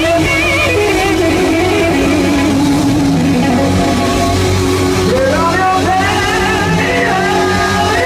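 Live rock band playing, led by an electric guitar line of bent, wavering notes over a steady bass, with a rising slide about five seconds in.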